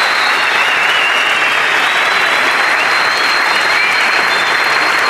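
Audience applauding steadily, with a thin high tone running above the clapping.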